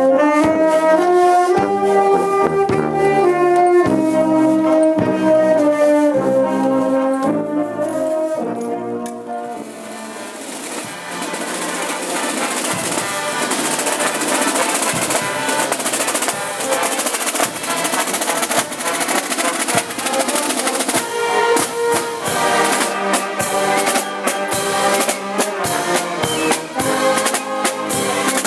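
Marching brass band playing a march, sousaphones and brass carrying the tune. About ten seconds in it briefly dips and gives way to a dense passage of drums and cymbals under the brass, and the clear brass melody returns about two thirds of the way through.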